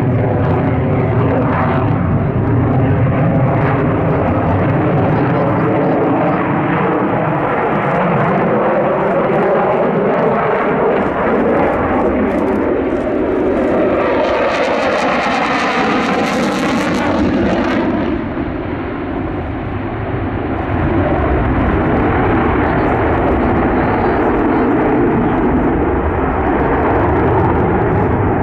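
Belgian Air Force F-16 Fighting Falcon's single Pratt & Whitney F100 turbofan, loud and steady as the jet flies display manoeuvres. About halfway through it passes close: a sweeping, phasing whoosh with a sharp hiss on top, then the noise dips briefly and returns with a deeper rumble.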